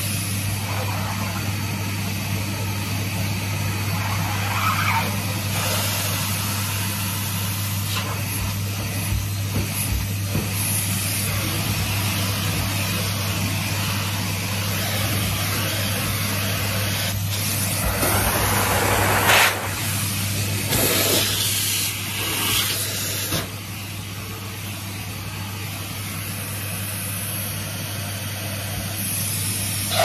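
Numatic Henry cylinder vacuum cleaner running with a steady motor hum and rushing suction as the wand is worked along a carpeted stair edge. The suction swells in louder surges a little past halfway, then runs quieter near the end.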